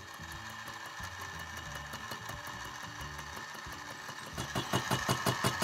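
Small benchtop milling machine running a carbide-tooth fly cutter, facing the steel of a hammer head: a steady machining sound that grows louder near the end, with a regular tick about seven times a second.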